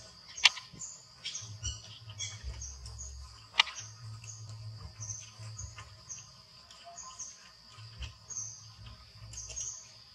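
A steady high drone with short, high-pitched chirps repeating over and over, broken by two sharp clicks about half a second and three and a half seconds in.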